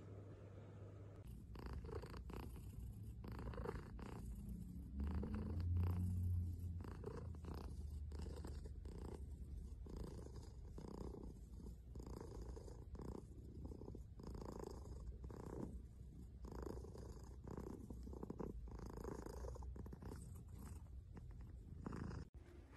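Tortoiseshell cat purring close up while being scratched on the head: a low, steady rumble that pulses in waves about once a second.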